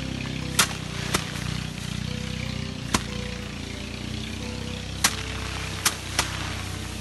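Bundles of harvested rice stalks beaten by hand against a wooden threshing plank, knocking the grain loose: six sharp whacks at uneven intervals, over steady background music.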